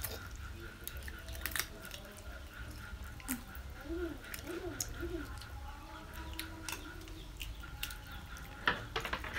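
Wet chewing and gnawing on spicy pickled chicken feet, with scattered sharp lip smacks and clicks, and a few short low hums from an eater in the middle.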